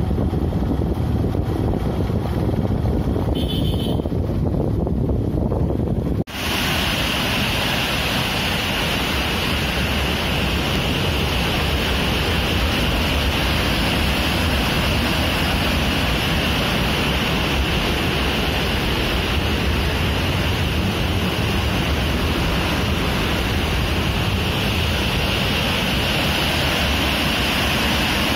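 For the first six seconds, wind rushes over the microphone of a moving Yamaha FZ motorcycle. The sound then cuts abruptly to white water pouring through an open barrage sluice gate, a loud, steady rushing.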